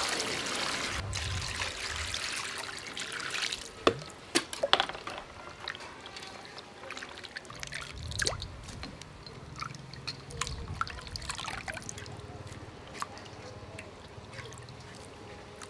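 Water poured from a plastic jug into a steel bowl of cubed pig blood curd, a steady splashing pour for about four seconds. Then a few sharp splashes as hands work the pieces, followed by scattered drips and small splashes as the rinsed curd is lifted out of the water.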